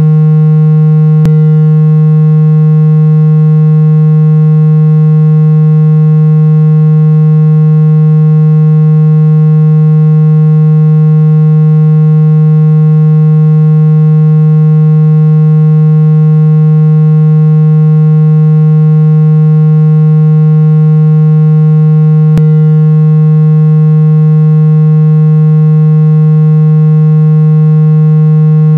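Steady, very loud, low buzzy synthesized tone with many overtones, held unchanging: a speaker-cleaning sound meant to vibrate trapped water out of a phone speaker. A faint click about a second in and another about three-quarters of the way through.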